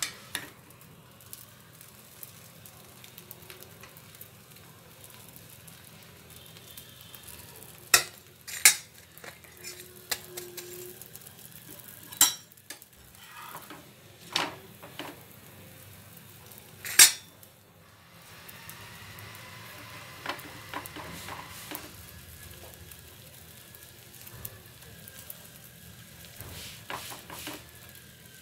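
Cooking on a flat griddle pan (tawa): five sharp clinks and knocks of utensils against the pan come between about 8 and 17 seconds in. From about 18 seconds in, a faint, steady sizzle sets in as raw paratha dough cooks on the hot oiled pan.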